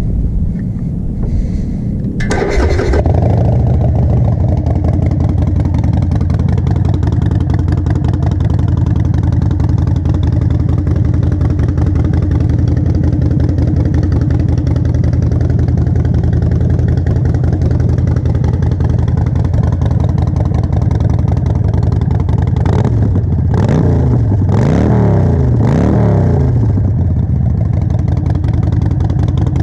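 Harley-Davidson Forty-Eight's air-cooled V-twin, fitted with Vance & Hines Short Shots Staggered exhaust, fires up about two seconds in and idles steadily. Near the end it is revved several times in quick succession, then settles back to idle.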